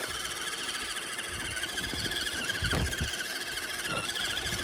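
Electric motor and drivetrain of a Redcat Everest 10 1/10-scale RC rock crawler whining steadily under load in deep snow, the pitch wavering slightly. There is a dull thump a little before the three-second mark.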